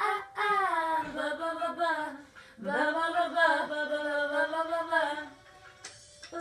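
Female voices singing a song in two long phrases, with a short break about two and a half seconds in, then trailing off quieter near the end.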